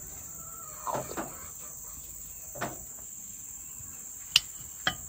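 Steady high-pitched chorus of insects, crickets by their sound, with two sharp clicks near the end: a metal spoon tapping against a ceramic bowl.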